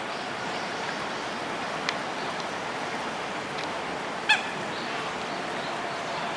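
A single short, loud honking bird call about four seconds in, over a steady background hiss, with a faint click a little before it.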